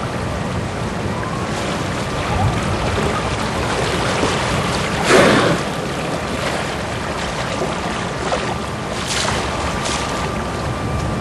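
A killer whale surfacing in its pool, with one short, loud exhalation from its blowhole about five seconds in and a fainter one just after nine seconds, over a steady wash of wind and rippling water.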